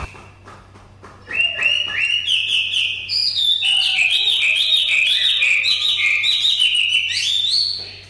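Hwamei (Chinese hwamei) singing a loud, varied run of rich whistled phrases, rising and falling in pitch. It starts about a second in and stops just before the end; the bird is in full song ('gacor').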